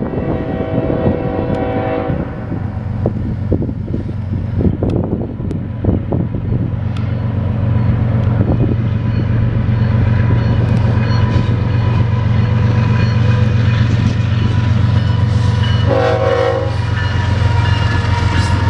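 CSX diesel freight locomotive approaching and passing. Its horn sounds for about two seconds at the start and again briefly near the end, over a steady low engine rumble that grows louder as the locomotive draws level. A few sharp clicks come in the first few seconds.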